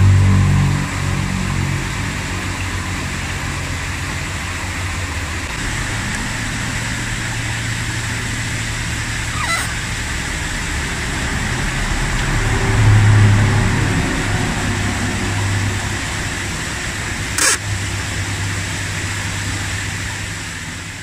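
Steady low machine hum with an even hiss, swelling slightly about two-thirds of the way through, with a faint click about halfway and a sharp click later on.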